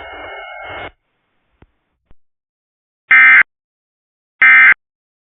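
EAS end-of-message data bursts: two short, identical, loud screeching digital tone bursts about a second and a half apart, signalling that the alert is over. A faint sound cuts off just under a second in, before them.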